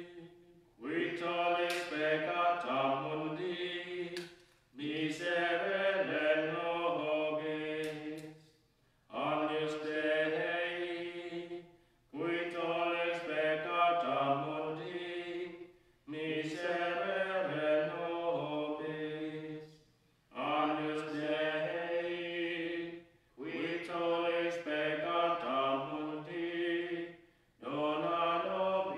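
A man's voice chanting a slow sung prayer in short phrases of a few seconds each, with brief pauses for breath between them.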